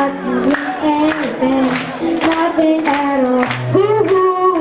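A boy singing into a microphone, holding and bending long sung notes, over regularly strummed acoustic-electric guitar.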